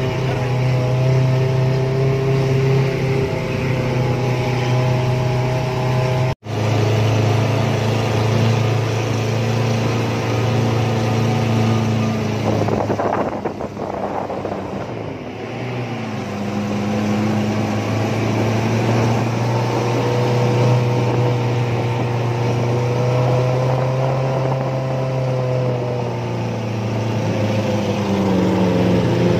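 Off-road vehicle's engine running while driving, its note shifting up and down as engine speed changes, with a noisier rushing stretch around the middle. The sound cuts out for a moment about six seconds in.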